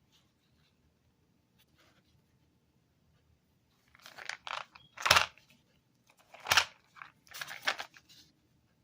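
Cough-drop packaging being torn and crunched: faint rustles, then from about halfway a run of crinkling with two sharp, loud rips and a last crackly stretch.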